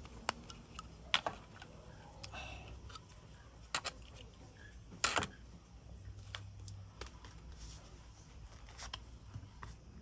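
Zippo lighters being handled: several separate sharp metal clicks, the loudest about five seconds in.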